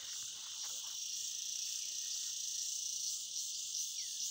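Steady, high-pitched chorus of forest insects, continuous and unbroken.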